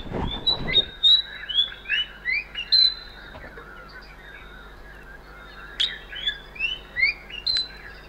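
Recorded song of a spot-breasted (white-spotted) fantail played back: two phrases of short, clear whistled notes, some sliding up and some down, with a pause of a few seconds between them. A low thump at the very start.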